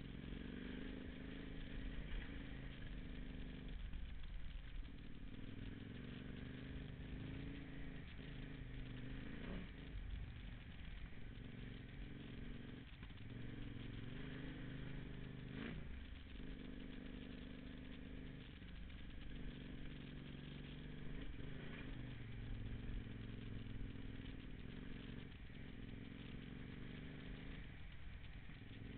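Off-road motorcycle engine running under way, its pitch dropping and climbing again over and over with throttle and gear changes, with a few sharp knocks as the bike rides over the rough, wet track.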